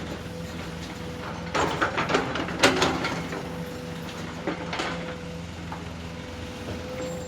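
Motor of a radio-controlled model excavator running with a steady whine and hum. There is a cluster of sharp knocks and clatters from about a second and a half to three seconds in, and a few more near five seconds.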